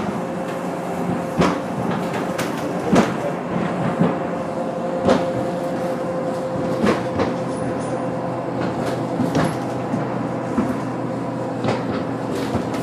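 Steady engine and road hum inside a moving bus, with sharp thumps every second or two.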